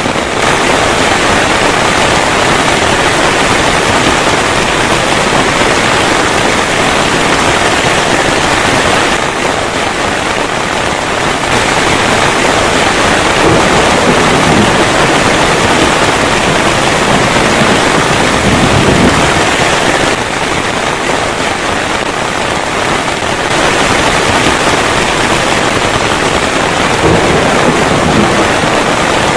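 Heavy rain pouring down steadily: a loud, dense, unbroken hiss.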